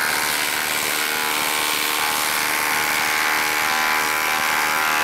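Milwaukee Fuel impact driver hammering without a break as it drives a 10-inch by half-inch lag screw into end-grain wood on speed 3; a steady, extremely loud rattling whine.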